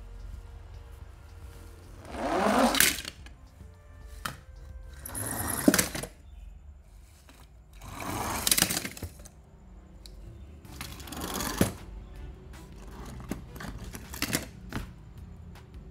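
Die-cast toy cars rolling one at a time across a ribbed plastic board: a rattling rumble of about a second, five times, with light clicks of the cars being handled and set down between.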